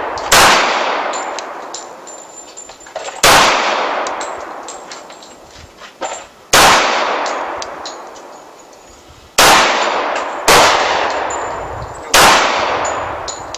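Dan Wesson Valor 1911 pistol fired six times at an unhurried, uneven pace, one to three seconds apart. Each shot is a sharp report followed by a long echoing decay.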